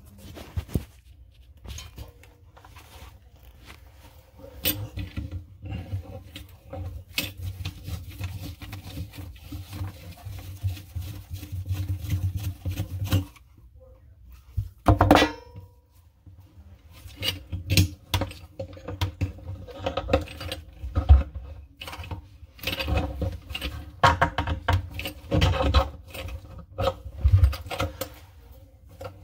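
Tools and plumbing parts being handled: irregular clinks, knocks and scraping, with a brief squeak about halfway through.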